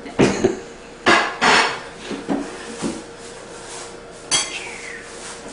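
Dishes and cutlery clinking on a set dinner table: a scattered series of separate sharp clinks and knocks, several in the first two seconds and one more near the end.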